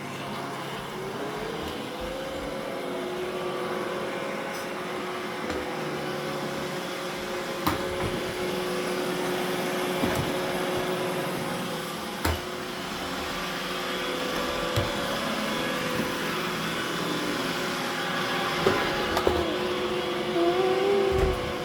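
Roomba robot vacuum running, a steady motor-and-brush hum with a couple of held tones, broken by a few sharp knocks.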